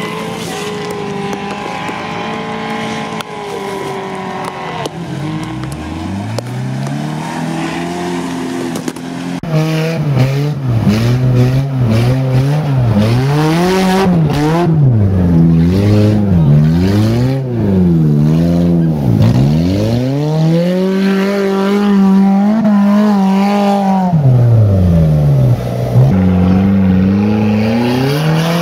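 Off-road trial 4x4 engines revving hard while climbing a muddy slope. The pitch rises and falls over and over, and it gets louder from about ten seconds in.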